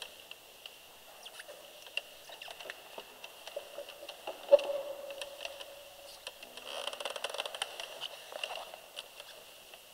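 Scattered small clicks, taps and rustling, busier a little past the middle, over a faint steady high whine; a brief low tone sounds near the middle. No music is playing.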